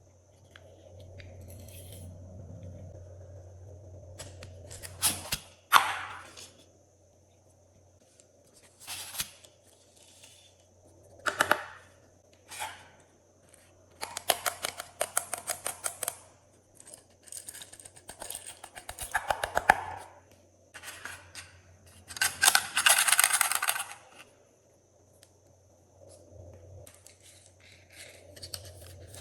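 Glossy slime being worked by hand, giving repeated bursts of sticky, crackling clicks, some short and some lasting a second or two, with quiet pauses between.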